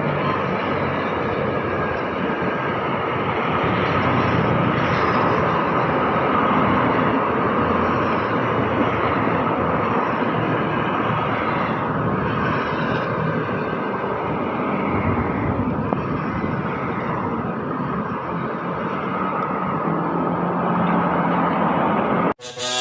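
Electric commuter train running: a steady rumble and rail noise that holds at an even level.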